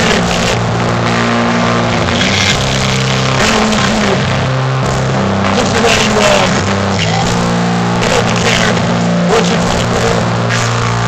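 Metal band playing live in a loud, distorted recording: guitars and bass hold low notes that change every second or two, over drum hits.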